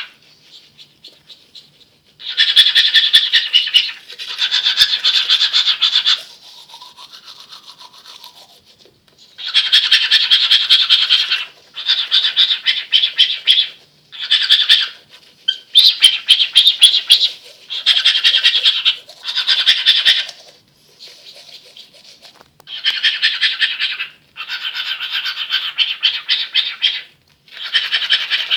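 Male cockatiel imitating the sound of teeth being brushed: a string of about a dozen bursts of rapid, rasping pulses, each a second or two long, with short pauses between.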